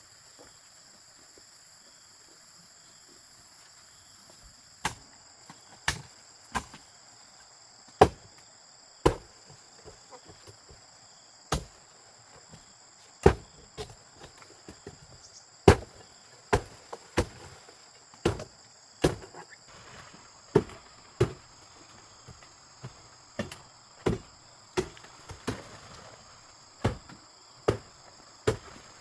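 Repeated sharp chopping strikes, starting about five seconds in and falling irregularly about once a second, coming closer together near the end. Insects shrill steadily throughout.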